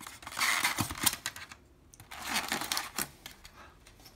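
Foam packaging insert rustling and scraping as small plastic toy parts are pulled out of it, with scattered light clicks.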